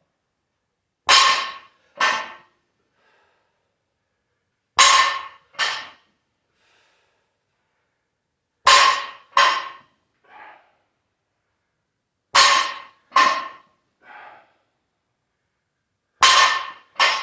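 Loaded barbell's plates clanking with each rep of straight-legged deadlifts: a pair of sharp metallic clangs with a short ring, repeating about every four seconds, five times.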